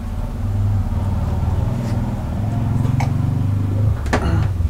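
A loud, steady low mechanical hum, engine-like, with a couple of short clicks near the end.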